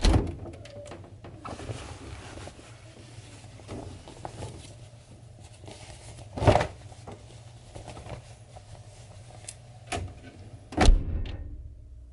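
Household knocks and clatter over a low hum: several sharp bangs, the loudest about six and a half seconds in and again near the end.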